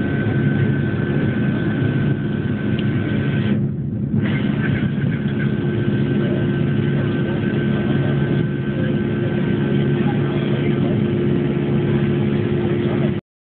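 Airliner's jet engines at takeoff thrust heard from inside the cabin: a loud, steady noise with a high whine over it, through the takeoff roll and liftoff. The sound briefly drops out about three and a half seconds in and cuts off abruptly near the end.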